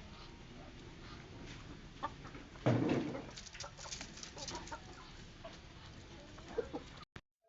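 Free-range village chickens clucking while they feed, with scattered short calls and light clicks. A louder thump comes about three seconds in.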